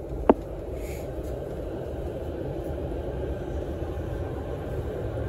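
E231-series electric commuter train pulling out of a station, heard from inside the car as a steady low rumble. One sharp knock comes a fraction of a second in.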